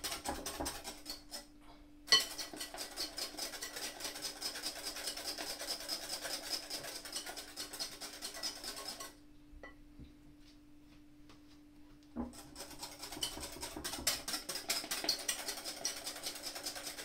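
Wire balloon whisk beating cream by hand in a glass bowl, its wires scraping and tapping against the glass in quick strokes. The whisking stops briefly about two seconds in, with a sharp knock as it starts again, and stops again for about three seconds in the middle.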